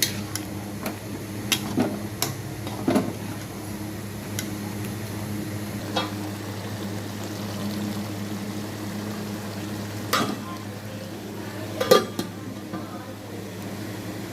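Spoon stirring and scraping chicken masala in a cooking pan, with scattered clinks and knocks against the pan, the loudest near the end, over a steady low hum.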